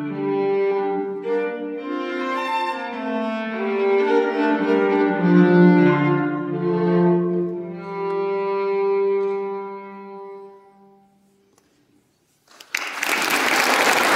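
Violin and cello duo playing the closing bars of a piece, ending on a long held note that fades away. After a moment of silence, audience applause starts about a second and a half before the end.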